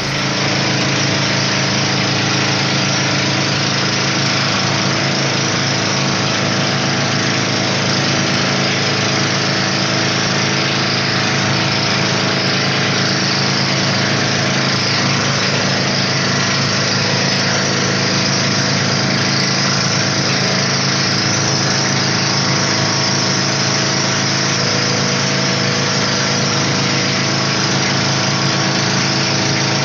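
Motorized outrigger boat (bangka) under way, its engine running loudly and steadily with no change in speed, over a constant hiss.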